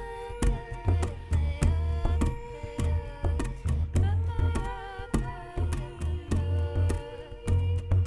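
Background music: a melody with a pitch that bends, over a held drone, with a steady drum beat.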